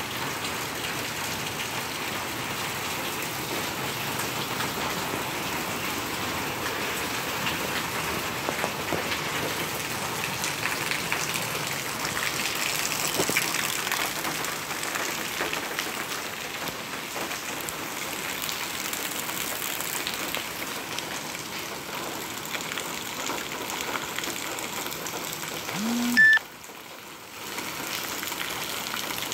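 Steady rain falling on wet pavement and puddles. Near the end a short rising tone sounds once, and then the rain noise drops away briefly.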